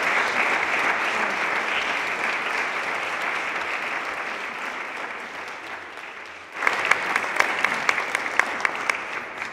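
Audience applauding, the applause slowly fading; about six and a half seconds in it cuts to a louder burst of applause with sharp individual claps close by, which tails off near the end.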